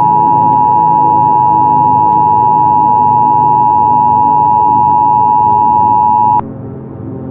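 Emergency Alert System attention signal: a loud, steady two-tone beep that cuts off suddenly about six seconds in. Low, dark ambient music runs underneath and carries on after it.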